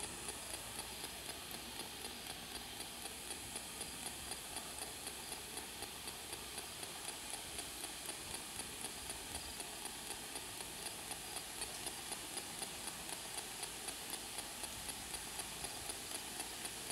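Spirit box radio sweeping through stations: a steady hiss of static with a faint click at each step, about four clicks a second.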